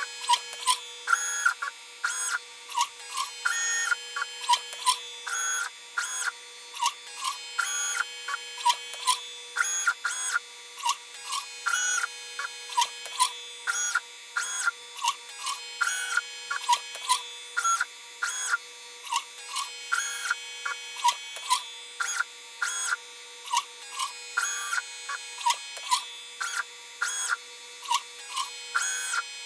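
Stepper motors of a LitePlacer pick-and-place machine whining through short, quick moves one after another, over a steady hum.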